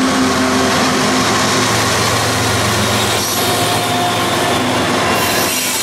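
Norfolk Southern freight train's diesel locomotives passing close by, a steady, loud rumble of engines and wheels on the rails.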